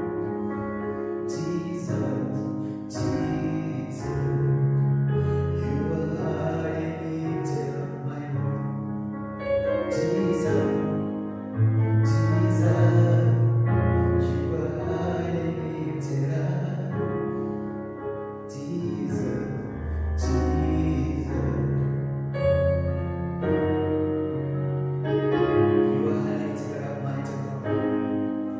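A slow worship song played on a Yamaha PSR-S770 arranger keyboard, with sustained chords over a changing bass line, accompanied by an acoustic guitar.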